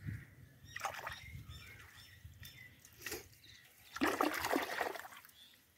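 Shallow water splashing and trickling as hands pull fish from a wet cast net, with a few light splashes and a louder splash about four seconds in.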